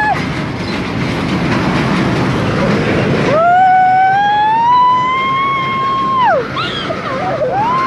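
Horror-train ride car rumbling and rattling along through the dark. About three seconds in, a long high wail starts, climbs a little, holds for about three seconds and then drops off sharply. Another wail starts near the end.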